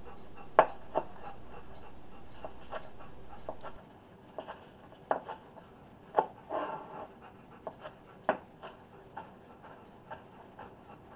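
Chef's knife chopping green onions on a plastic cutting board: irregular sharp taps, roughly one every half-second to a second. A dog pants in the background.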